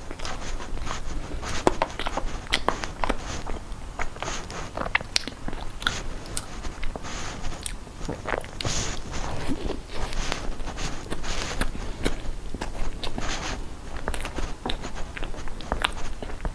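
A person biting into and chewing a pastry coated in meat floss, close to the microphone: many small crisp crackles and clicks in an irregular run.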